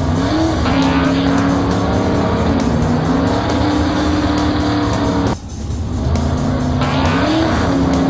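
Cartoon race car engine sound effects running steadily and revving up, over background music with a steady beat. The sound cuts out briefly about five seconds in, then builds back up.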